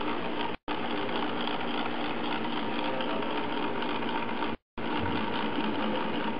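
Painting machine's motor-driven brush rotor spinning at high speed, a steady mechanical whir as it flings paint onto paper. The sound cuts out for a moment twice.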